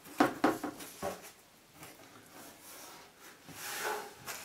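Cardboard box flaps being pulled open and folded back: a few sharp scrapes and flaps in the first second, then softer cardboard rubbing with a brief rustle near the end.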